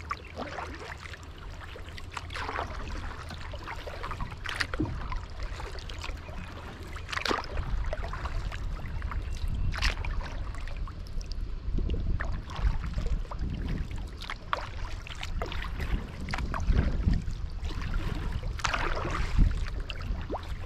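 Kayak paddle dipping and pulling through still lake water, a splashy stroke about every two and a half seconds, over a steady low rumble.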